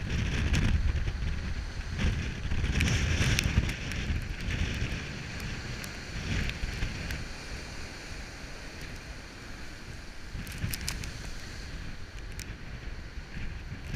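Heavy storm surf crashing and seething on a rocky shore, with strong wind buffeting the microphone, gustiest in the first half. A few sharp ticks about ten seconds in.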